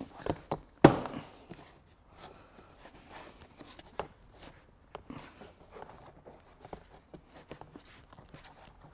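Hard plastic car interior trim panel being pressed and worked into place by hand. There are a couple of small clicks, then one sharp knock about a second in, followed by faint scattered taps and rustling.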